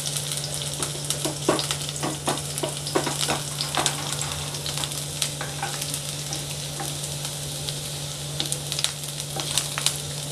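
Chopped garlic sizzling in hot oil in a non-stick wok, stirred with a silicone spatula that scrapes and taps against the pan, the taps coming more often in the first few seconds.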